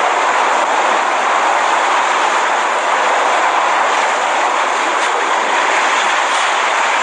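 Loud, steady roar of Category 5 hurricane winds driving heavy rain, without a break.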